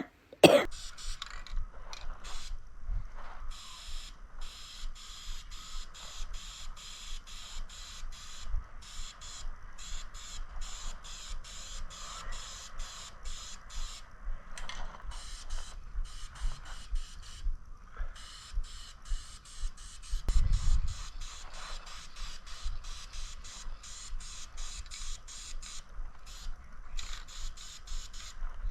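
Aerosol can of high-heat paint spraying onto an engine, a hiss that breaks off briefly now and then between passes. A low thump about two-thirds of the way through.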